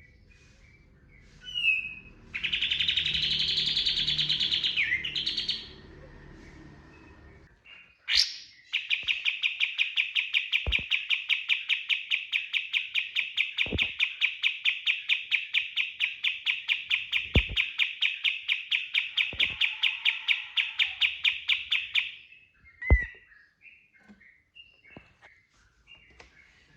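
Kapas tembak songbird singing: a short chirp and a burst of song about two seconds in, then a long rapid-fire run of the same note repeated about five times a second for roughly thirteen seconds, the 'tembakan' song that keepers prize, followed by scattered chirps. A few sharp clicks fall during the run.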